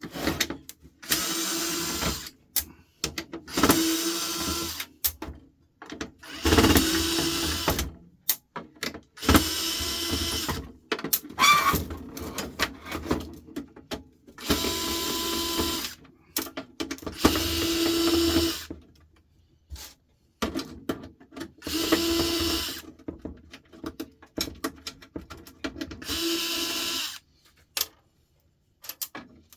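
Cordless drill-driver running in a dozen or so short runs of a second or two, with brief pauses between, as it backs screws out of a lamp fixture's housing.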